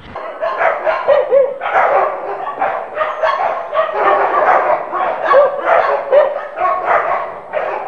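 Many dogs barking, yelping and whining at once in a continuous clamour: flood-stranded dogs crying out in distress for help.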